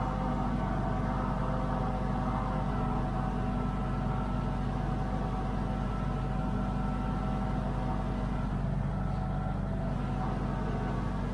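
International 1455 tractor's diesel engine running steadily at a constant speed, a continuous low hum with no changes.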